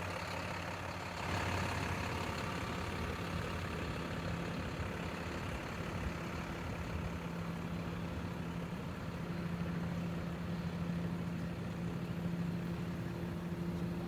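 A steady engine hum holding one constant low pitch, like a vehicle idling.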